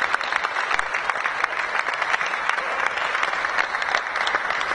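Audience applauding steadily, the clapping of many hands.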